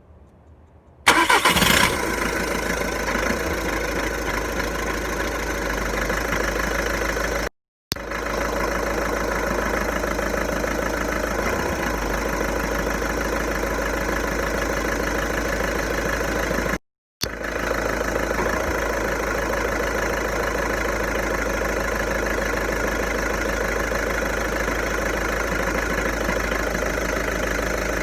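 Volkswagen Golf 1.6 TDI four-cylinder diesel engine starting about a second in, then idling steadily, with a noise the owner suspects may come from the dual-mass flywheel. The sound cuts out completely twice for a moment.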